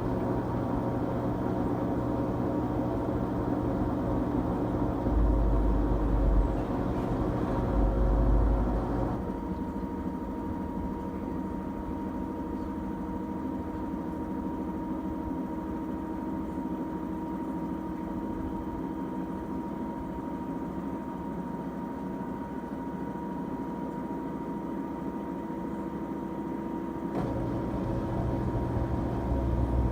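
LG Tromm front-loading washing machine running a quick-wash cycle, its drum motor giving a steady hum with several held tones. There are two low thuds at about 5 and 8 seconds. The machine then runs quieter from about 9 seconds until the lower hum comes back near the end.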